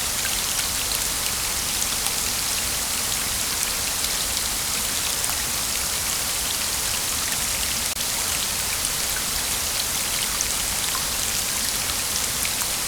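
Waterfall: a steady, even rush of falling water with fine spattering, dipping briefly about eight seconds in.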